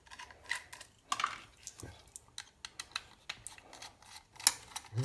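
Irregular small clicks and taps of a small hand tool on metal and plastic laptop parts during disassembly, with a sharper click about four and a half seconds in.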